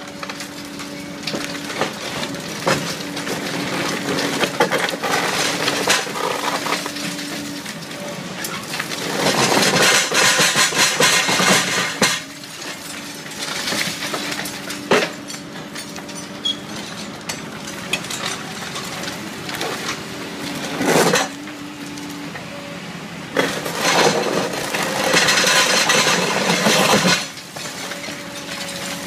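Excavator-mounted hydraulic concrete crusher (Betonbeisser) biting through reinforced concrete: irregular cracking and crunching of breaking concrete, with sharp snaps and two longer stretches of loud crunching and grinding, over the steady hum of the excavator's engine.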